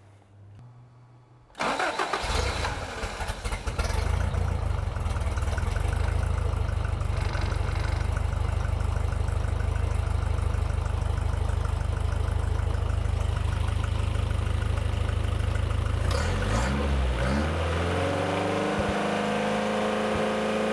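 Toyota 22RE four-cylinder engine cranking and firing right up about a second and a half in, running unevenly for a moment, then running steadily. It starts because the old fuel pump is back on; the replacement pump did not give enough fuel pressure. Near the end the note slides down and up in pitch and settles into a steady hum.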